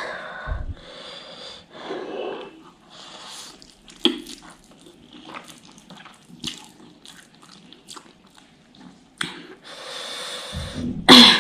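A person eating very spicy ghost pepper noodles: small clicks of biting and chewing mixed with noisy breaths through the nose and mouth, with one loud short burst near the end.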